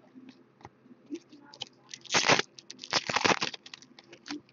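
Trading cards and their foil pack wrapper being handled: light clicks and rustles, then two louder crinkling, tearing bursts about two and three seconds in.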